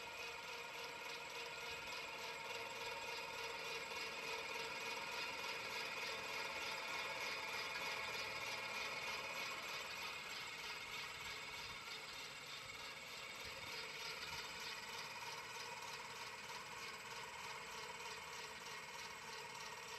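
Paillard clockwork fan running on its heavy-duty spring motor: the gear train whirs steadily with a fast, even ticking as the blades spin.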